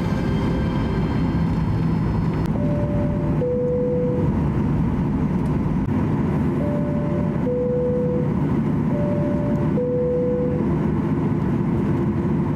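Steady noise of a Boeing 737-800's CFM56 engines and cabin air while the airliner taxis. Over it, the high-low two-tone cabin chime sounds three times, about 3, 7 and 9 seconds in: the cabin signal heard in the run-up to takeoff.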